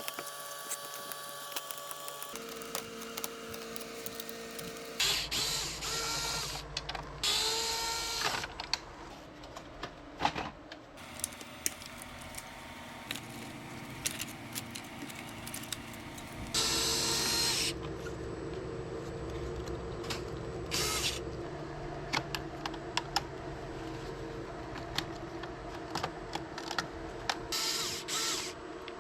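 Cordless electric screwdriver driving screws out of an air conditioner unit as it is taken apart. It runs in several short bursts with a whine that rises in pitch, and light clicks of parts being handled fall between the bursts.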